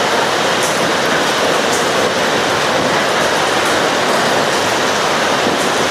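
Heavy rain falling steadily, a loud even rush as loud as a voice, with a few faint ticks.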